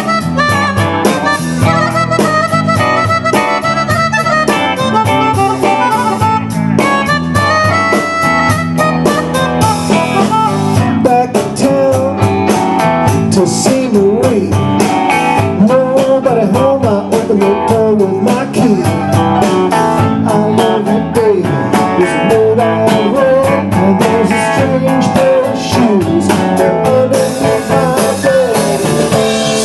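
Live band playing an instrumental blues passage over a steady drum beat. From about eleven seconds in, a lead instrument wavers and bends in pitch.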